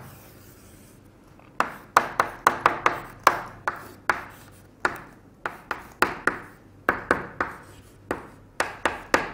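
Chalk writing on a blackboard: an irregular run of sharp taps and short scrapes, a few a second, starting about a second and a half in.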